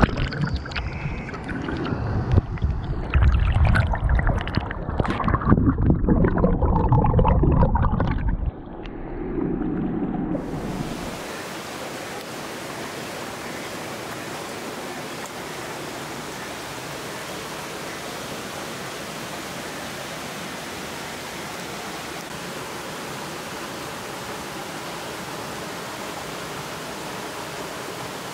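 Dull underwater sloshing and bubbling as a whole raw chicken is dunked and washed in a stream. About ten seconds in, it gives way to the steady, even rush of the flowing stream.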